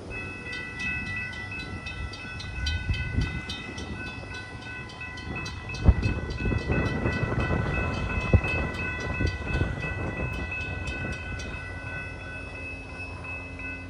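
Railroad grade-crossing warning bell ringing with rapid, evenly spaced strikes over a steady ringing tone, the crossing activated for an approaching train; the strikes stop about 11 seconds in while the ringing tone carries on. Under it runs a low rumble, broken by two sharp low thumps about 6 and 8 seconds in, the loudest sounds here.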